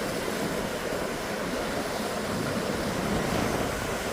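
Pacific Ocean surf: steady wash of breaking waves, with some wind on the microphone.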